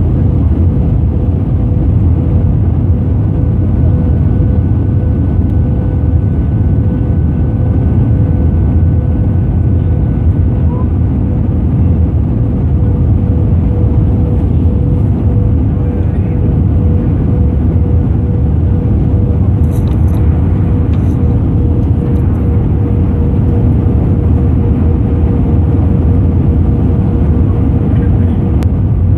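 Jet airliner cabin noise during the descent to land: a loud, steady roar of engines and rushing air, with a steady low hum running through it.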